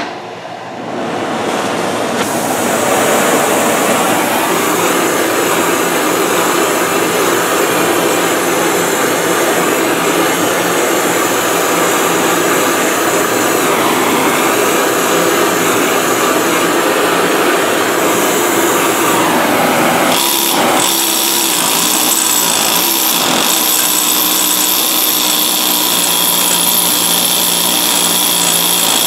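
Gas torch flame burning with a steady hiss as it heats a fresh weld on cast iron, building to full over the first second or two. A thin high whine joins about two-thirds of the way in.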